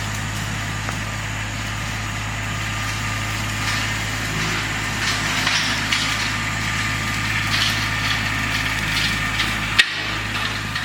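Tractor engine running steadily as it mows down brush, with scattered crackles and snaps of brush.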